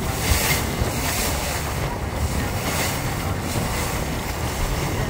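Wind buffeting the microphone on the open deck of a river cruise boat under way, over a steady rush of water and the boat's running noise.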